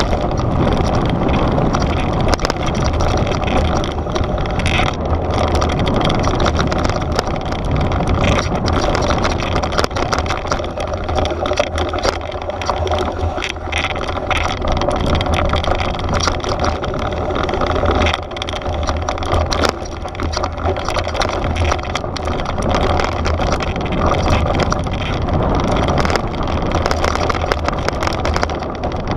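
Mountain bike descending fast on a loose rocky trail: knobby tyres crunching over gravel and stones, with a constant clatter of rattles, under heavy wind buffeting on the camera microphone.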